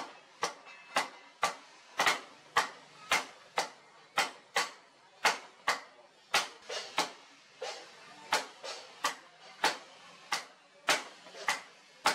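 Hand hammer forging a red-hot steel bar on an anvil: sharp metallic blows at a steady pace of about two a second.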